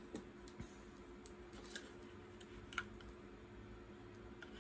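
Faint, scattered small clicks and taps from hands handling a plastic camera battery and its charger, over a low steady hum; the clearest click comes a little under three seconds in.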